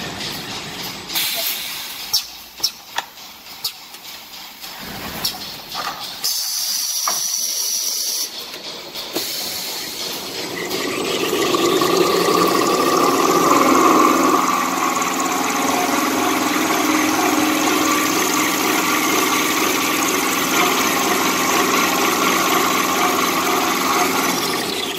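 Kitchen towel rewinding machine on a tissue converting line: several sharp knocks and clicks of the mechanism, a high hiss lasting about two seconds, then the machine runs up to speed with a rising whine and settles into a steady running sound that stops just before the end.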